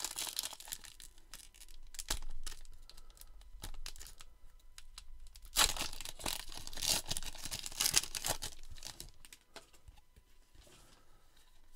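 Baseball card pack wrapper being torn open and crinkled, in rough crackling bursts, loudest near the start and again from about five and a half to eight seconds in.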